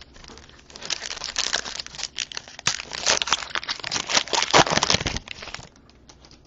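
Trading card pack wrapper being crinkled and torn open by hand: a dense crackling, starting about a second in and stopping about a second before the end.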